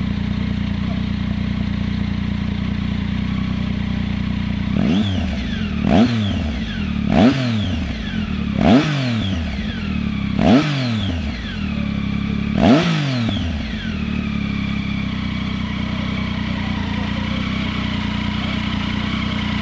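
Triumph Tiger 800's three-cylinder engine idling through a LeoVince LV-One Evo II carbon slip-on silencer. About five seconds in, it is blipped five times, one to two seconds apart: each rev shoots up sharply and drops back to idle. By about fourteen seconds in it has settled back to a steady idle.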